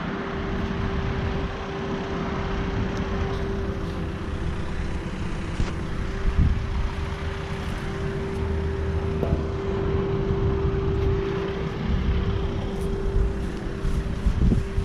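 Outdoor central air conditioner condenser unit running: a steady hum over the rush of the condenser fan.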